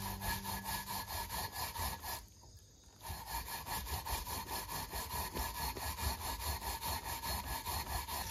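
Mountain yam (yamaimo) being grated on a metal grater over a glass bowl: even rasping strokes, about three or four a second, with a brief break a little after two seconds in.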